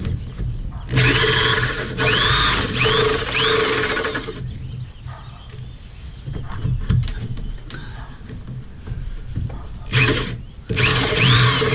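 Corded drill spinning a 3 1/8 inch hole saw that cuts up into the underside of a boat's T-top. It runs in spells: from about a second in to about four seconds, then again near the end after a brief start, with short high chirps while it cuts.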